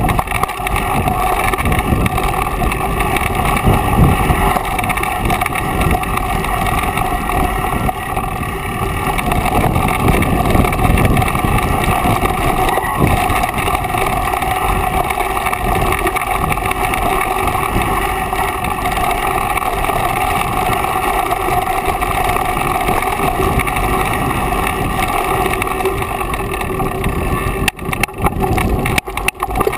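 Mountain bike riding down a dirt singletrack: a steady rush of wind noise on a point-of-view action camera's microphone, mixed with the rumble and rattle of tyres and frame over the trail. The noise dips and turns choppy for a moment near the end.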